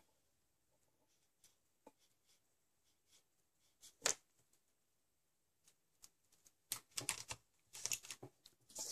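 Small clicks and taps of hands handling a marker and paper on a table: a single sharp click about four seconds in, then a flurry of quick clicks and rustles near the end.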